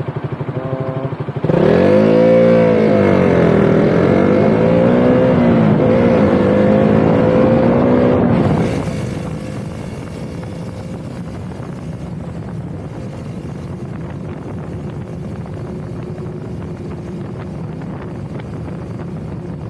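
Motorcycle engine running low for a moment, then, about a second and a half in, pulling away hard, its pitch climbing and dropping back through gear changes for about seven seconds. It then eases off to a quieter steady cruise, mostly wind and road noise.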